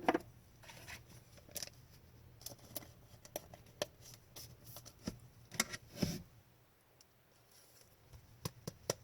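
Trading cards being handled and flipped through: a scatter of short card slides and light clicks at irregular intervals.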